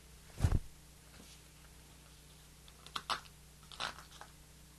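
Cardstock pieces being handled and pressed into place on a work surface: a low thump about half a second in, then a few short crisp paper rustles about three to four seconds in.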